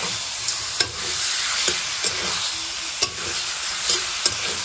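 Pork pieces frying and sizzling in oil in a steel kadai as a metal spatula stirs them through the masala. The spatula scrapes the pan and clicks sharply against it about once a second.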